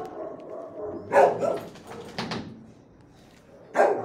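Dogs barking in an animal-shelter kennel: a few sharp barks, about a second in, near the middle and just before the end, over fainter dog noise.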